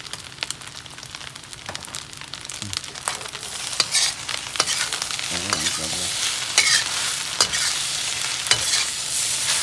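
Fried rice sizzling in a hot wok, with soy sauce just added, while a metal utensil stirs and tosses it, scraping and clicking against the pan. The sizzle gets louder about three seconds in.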